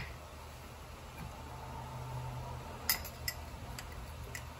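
A sharp knock at the very start, then a metal spoon clinking lightly against a small ceramic ramekin a few times in the second half while stirring olive oil in it.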